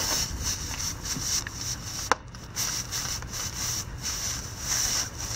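Spiral reamer from a tyre plug kit being worked back and forth in a puncture in a car tyre's tread: steel rasping against rubber, with a sharp click about two seconds in.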